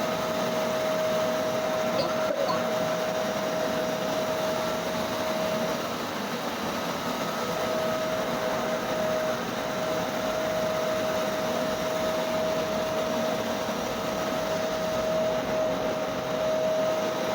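CNC die-board milling machine running steadily while cutting plywood: a constant whine over a steady rushing noise.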